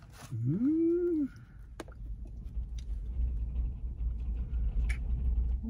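A person's short wordless vocal sound, a hum that rises and then falls in pitch, lasting about a second; then two sharp clicks and a low rumble.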